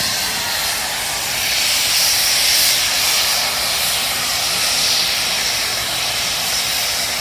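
Union Pacific Big Boy No. 4014 steam locomotive venting steam from the top of its boiler: a loud, steady hiss that starts abruptly.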